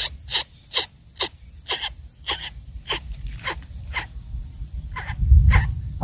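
Coucal nestling begging with short, raspy calls, about two a second, over the steady high trill of an insect. A low rumble comes in near the end.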